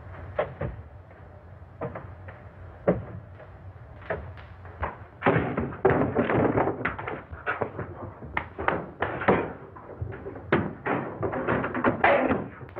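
A scuffle: a quick run of thumps, knocks and bangs as a man lunges after a leaping cat and knocks against furniture. It is densest and loudest from about five seconds in.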